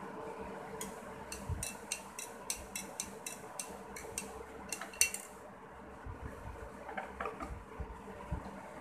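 A spoon clinking quickly and evenly against a drinking glass while stirring, about five clinks a second for some four seconds, then a few soft knocks.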